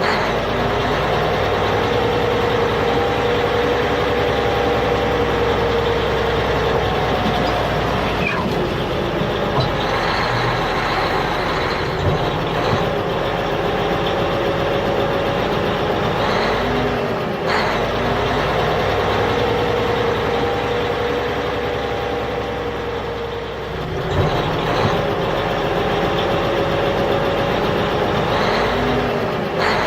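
A DIY mini wheat thresher's small motor running with a steady whine that wavers in pitch. It is briefly interrupted about a third and again about two-thirds of the way through, then picks up again.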